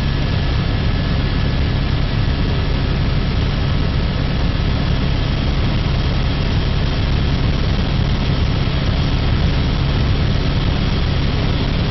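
Steady engine and rotor noise inside the cabin of a six-passenger helicopter in level flight, with a strong low hum and no change in pitch or loudness.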